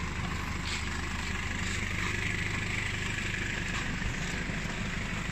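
A truck's engine idling with a steady low hum.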